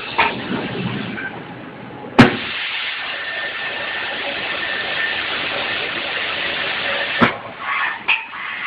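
Automatic paint spray guns spraying with a steady hiss of compressed air. They switch on with a sharp click about two seconds in and cut off with another click about five seconds later.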